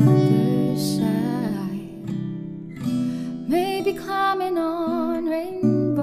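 Background music: a song with strummed acoustic guitar and a sung voice holding long, wavering notes.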